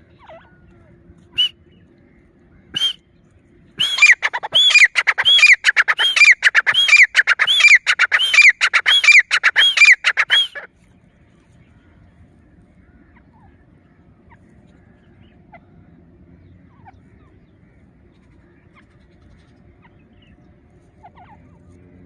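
Grey francolin calling: two short single notes, then about six seconds of loud, rapidly repeated call notes, roughly two a second, each rising and falling in pitch, which stop abruptly.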